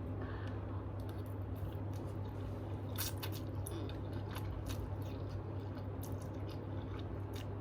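A person chewing and eating with irregular wet mouth clicks and smacks, over a steady low hum.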